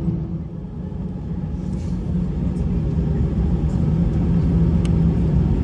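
Airbus A320 cabin noise while taxiing: a steady low rumble with a held engine hum. It dips briefly about half a second in, then builds back up.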